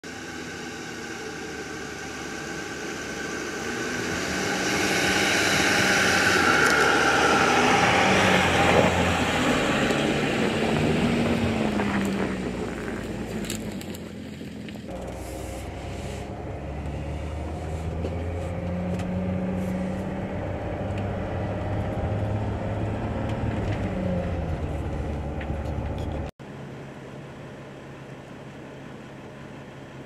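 A Mercedes Sprinter van approaching and passing on a snowy track, its engine and tyre noise growing loud and then fading. This gives way to a steady engine and road hum heard from inside the cab, and then cuts off suddenly to a faint steady background near the end.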